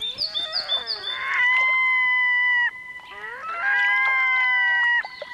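Red-throated loons calling as a pair in territorial display: a quick run of short gliding notes, then two long, level drawn-out calls, each over a second, with shorter notes between.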